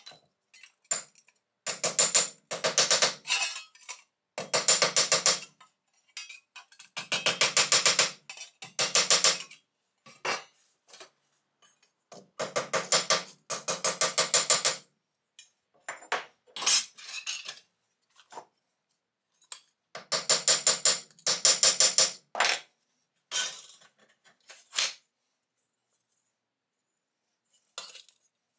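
Hand scraping on cast-iron scale parts: a run of separate strokes about a second long, each a rapid rasping of many fine ticks, with short knocks and clicks between the strokes.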